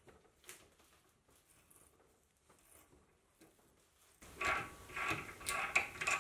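A hand tap in a tap wrench being turned to cut a thread in a mild-steel block, with faint clicks at first. From about four seconds in come louder, squeaky creaking pulses, four or five of them, as the tap cuts.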